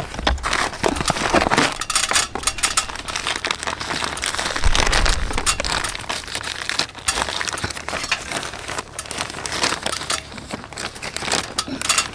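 Clear plastic bag crinkling and rustling as compost is scooped and shaken out of it into a planting hole, with small gritty scrapes of soil and a hand trowel.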